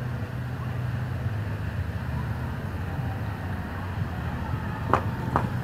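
Steady low rumble of a car driving on a nearby street, with two short, sharp sounds about half a second apart near the end.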